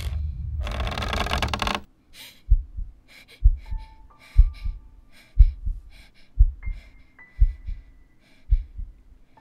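A loud creaking, grating noise cuts off about two seconds in. Then a slow heartbeat thumps about once a second, lub-dub, under faint held high tones.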